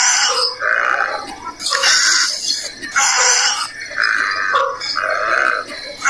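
Animal calls repeated in short, rough bursts about once a second.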